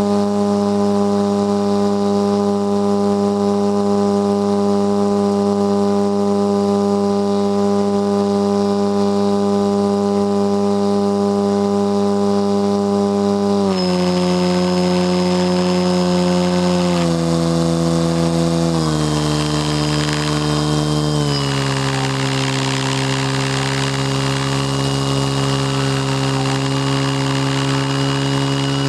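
Model airplane's motor and propeller heard from a camera riding on the plane: a steady drone that steps down in pitch three or four times in the second half as the throttle is cut back for the descent to land, with a faint high whine joining after the first drop.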